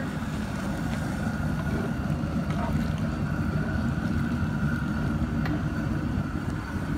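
Steady low rumble of the propane burner under a large cast-iron pot of boiling jambalaya, with a faint steady higher tone over it.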